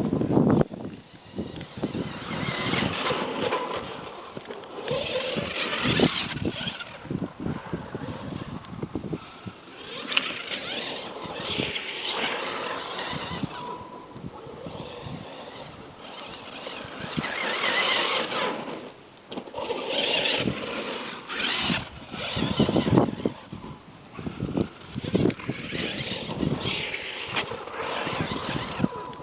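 Brushless electric 1/5-scale RC car driving in repeated bursts: motor, drivetrain and tyre noise swell and fade as it accelerates and passes, with no steady engine note.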